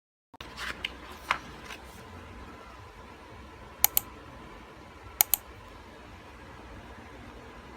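A few light taps in the first two seconds, then two sharp double clicks about a second and a half apart, over a faint steady background hum.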